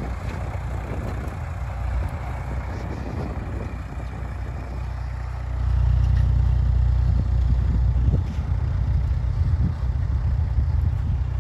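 Massey Ferguson 255 tractor's diesel engine running steadily, getting louder about halfway through.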